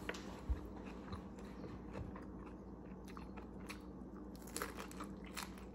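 A person biting into and chewing a Vietnamese spring roll: faint mouth sounds with small scattered clicks.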